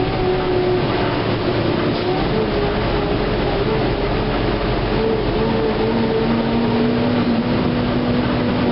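NABI LFW transit bus heard from inside the passenger cabin while moving: a steady engine and drivetrain drone with road noise, its whine climbing slightly in pitch about halfway through.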